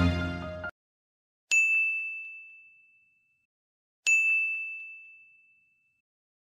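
Two single bell dings about two and a half seconds apart, a sound effect. Each is a clear high ring that fades away over about a second and a half.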